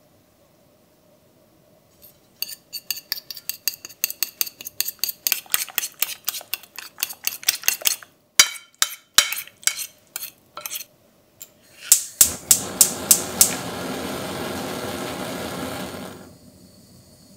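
Eggs beaten with a fork in a bowl: quick clinks of metal on the bowl, about five a second, then a few slower single taps. Near the end another run of clinks is joined by a steady noise lasting about four seconds.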